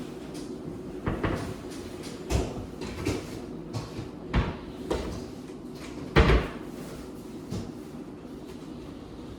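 Kitchen clatter: a series of separate knocks and clunks of cupboard doors and dishes being handled, the loudest about six seconds in.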